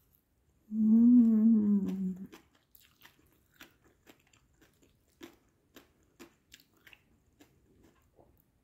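A person hums a long, wavering "mmm" for about a second and a half, then chews a mouthful of crunchy raw cucumber and apple salad in a string of soft, irregular crunches.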